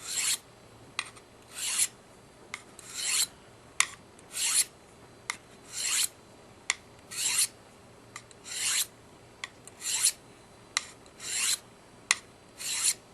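Two-blade steel broadhead edge, held in a clamp guide, drawn across the medium-grit side of a sharpening hone in about ten light, even scraping strokes, roughly one every 1.4 seconds, alternating sides to take off the burr. A short click comes just before each stroke as the guide is laid down on the hone.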